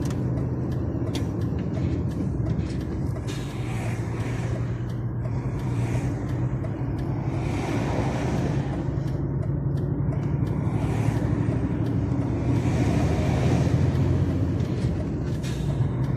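Diesel engine of a DAF truck running steadily under way, with road noise. The engine is misfiring (running rough on its cylinders), a fault that a new fuel filter has not cured.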